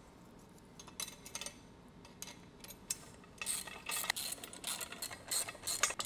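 A wrench tightening self-locking nuts onto steel bolts: scattered metallic clicks, turning into quick, busy runs of clicking from about halfway through.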